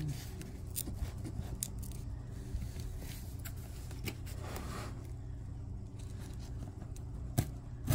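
Scraping, picking and light tearing at the tape of a taped-up package being worked open by hand, with scattered clicks and a sharp click near the end, over a low steady hum.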